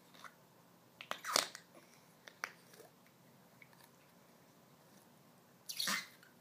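A few faint mouth clicks and short breathy noises, separated by long quiet stretches, with one more breathy burst near the end.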